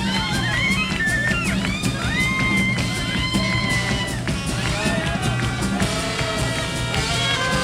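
Live swing jazz: clarinets playing quick melodic lines with bends and runs over a rhythm section keeping a steady beat.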